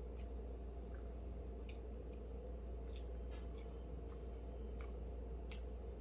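Quiet room tone: a steady low hum with faint, irregular small clicks about once or twice a second.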